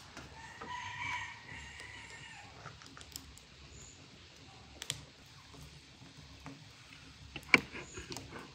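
A chicken calls briefly about a second in, over a quiet yard background. Scattered light clicks and knocks of kitchen knives against metal bowls and a colander follow as mushrooms are cleaned, the sharpest near the end.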